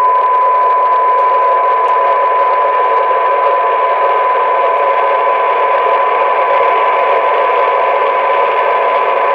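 A Sears Roadtalker 40 CB radio's speaker playing a steady 1 kHz test tone through heavy receiver hiss. The hiss is the sign of a test signal turned down near the receiver's sensitivity limit, around −100 dBm, and the tone stays audible under it.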